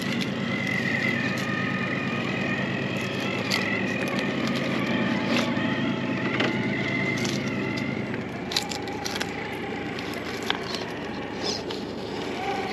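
Radio-controlled rock crawler's electric motor and geartrain whining at low crawling speed, wavering as the load changes. Its tyres scrape and crunch over rock. The whine fades about two-thirds of the way through, leaving a few sharp knocks and clicks of the truck on stone.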